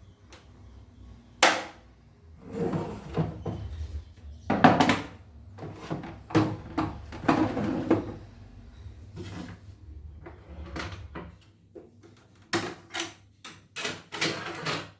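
Irregular knocks, clunks and rattling of hard parts being handled, as when working on the casing of a CNY E900 embroidery machine, over a low hum that stops about eleven seconds in.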